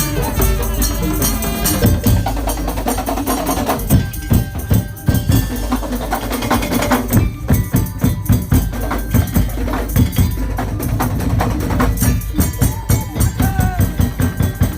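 Madurese tongtong (ul daul) ensemble playing loud, fast rhythmic music: dense wooden slit-drum and drum strokes with a steady beat over sustained pitched melody notes.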